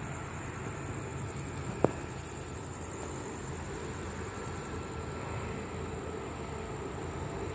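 Distant approaching freight train: a steady low rumble from its locomotives, with one sharp click a little under two seconds in.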